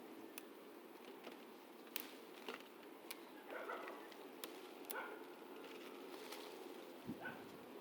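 Scattered light, sharp clicks and knocks over faint outdoor background noise.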